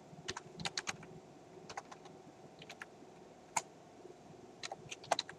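Computer keyboard keystrokes, a faint scatter of clicks in small groups, the loudest single click about three and a half seconds in.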